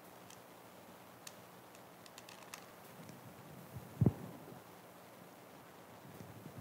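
A candle in its holder set down on a wooden lectern: a few faint clicks of handling, then one short, dull thump about four seconds in.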